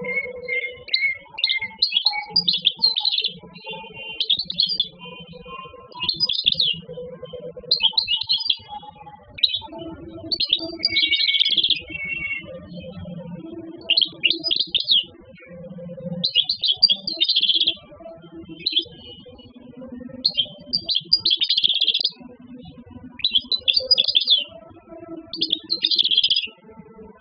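Wild-caught European goldfinch singing in its cage: bursts of rapid, high twittering phrases, one every second or two with short pauses between, over a fainter lower sound.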